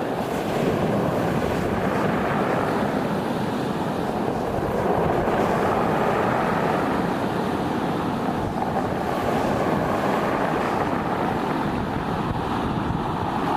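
Strong stormy wind blowing hard, buffeting the microphone with a steady rushing rumble that swells and eases slowly.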